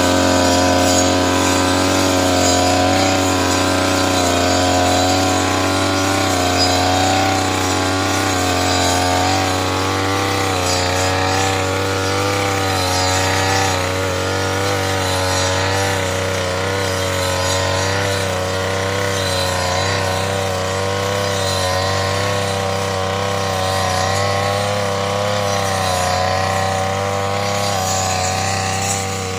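Backpack brush cutter's small petrol engine running steadily at high speed, its pitch wavering and dipping slightly as the blade cuts through tall grass.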